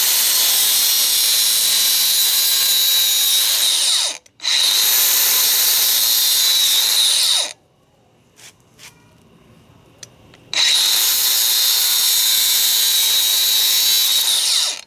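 Power tool cutting through a braided steel turbo oil drain line: a loud, steady, high-pitched whine. It comes in three runs, each winding down as it stops. There is a brief break about four seconds in, and a pause of about three seconds past the middle with a few light clicks.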